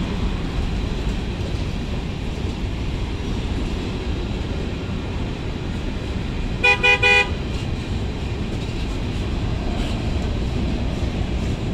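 A freight train's covered hopper cars and boxcars rolling past with a steady rumble. About two-thirds of the way through, a horn sounds three quick short beeps.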